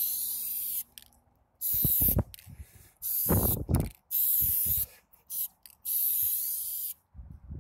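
Aerosol spray paint can sprayed in a string of short hisses, about six bursts of a second or less each with brief pauses between, as a graffiti tag is written.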